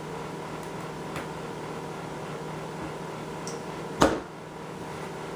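A 10-inch aluminum rod snapping onto the ice skimmer's tabs: a single sharp click about four seconds in, after a couple of faint handling clicks, over a steady hum.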